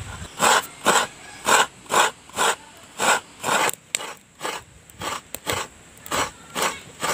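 Coconut being grated by hand: a steady rhythm of raspy scraping strokes, about two a second.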